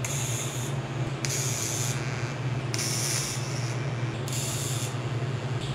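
TIG welding arc hissing in a series of short bursts, about four tack welds roughly a second and a half apart, joining pie-cut sections of exhaust pipe. A steady low hum runs underneath.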